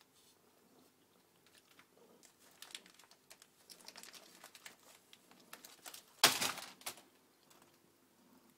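A cat rummaging in food packaging inside a kitchen cupboard: crinkling and crumpling with small clicks, and a louder rustle about six seconds in.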